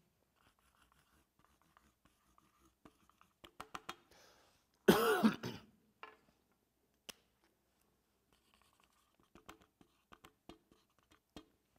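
A man coughs once, briefly, about five seconds in, amid quiet. A few faint clicks from the laptop come before and after.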